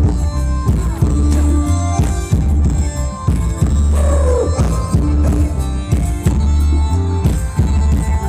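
Loud live band music for ramwong dancing, with a heavy repeating bass line under a steady drum beat.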